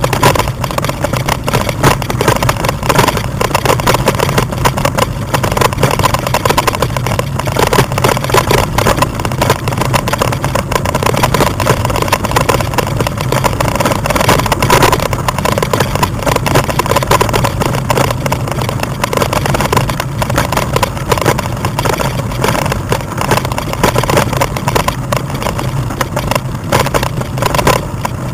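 Steady ride noise from a bike-mounted camera travelling along a gravel track, a dense unbroken rattle over a constant low rumble.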